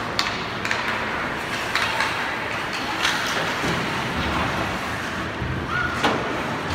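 Sound of a basketball game in a gym: a steady din from the hall with a few scattered sharp knocks from play on the court, and a short squeak a little before the end.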